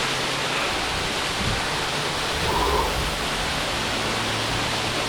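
Waterfall running strongly, swollen after heavy rain: a steady rushing of falling water.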